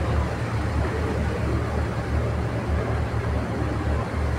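Car ferry underway, its engines giving a steady low rumble under an even hiss of water and wind.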